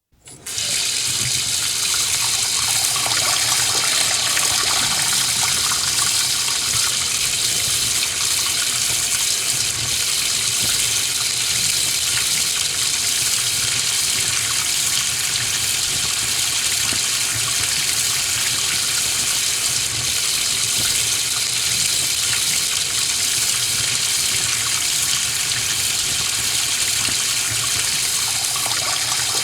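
Kitchen sink tap running steadily, water splashing into the sink.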